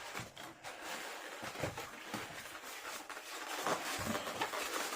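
Plastic and cardboard packaging rustling and scraping, with many small irregular clicks and knocks, as a toy RC plane is worked out of a snug box insert.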